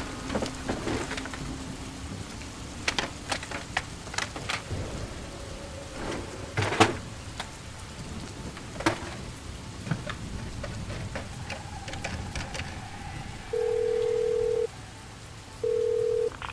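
Papers and objects rustling and knocking on a desk over a steady background hiss, with one loud knock about seven seconds in. Near the end a telephone tone sounds twice through the handset of a corded landline phone as a call is placed.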